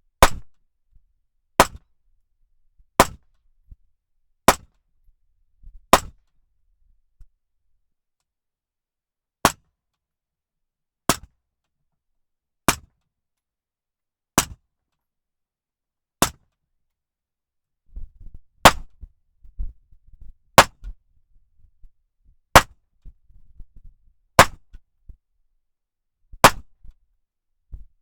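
Suppressed gunshots from a firearm fitted with a 3D-printed free-flow suppressor, about fifteen single shots fired at a steady pace, roughly one every one and a half to two seconds, with a longer pause in the first half.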